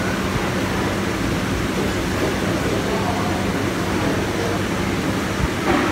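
Steady background noise of an open-air eatery: a continuous hiss with a low hum, with faint chatter under it.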